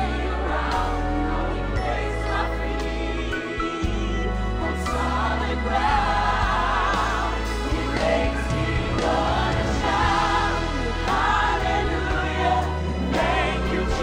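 Gospel choir singing together over instrumental backing, with a deep bass line underneath.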